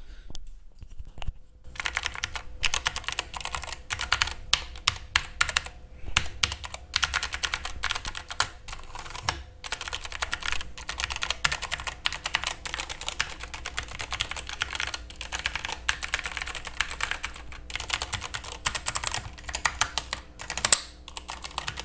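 Typing on a Keychron K8 tenkeyless mechanical keyboard with a metal frame, recorded close up: a fast, dense run of key clicks that starts about a second and a half in, with a couple of short pauses.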